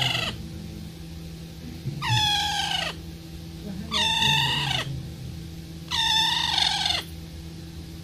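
Pet green parrot calling: three drawn-out calls about two seconds apart, each about a second long and dropping in pitch at its end.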